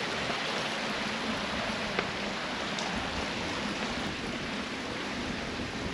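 Steady rush of a waterfall, with a single click about two seconds in.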